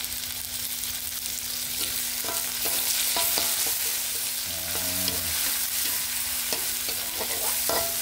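Chopped tomatoes, chillies and shallots sizzling in hot oil in a metal wok while a metal spatula stirs them, with repeated sharp clinks of the spatula against the wok from about two seconds in.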